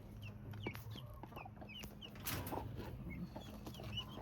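Guinea keets peeping in many short, high, down-slurred chirps, with a broody hen clucking, and a brief louder scuffing noise a little over two seconds in.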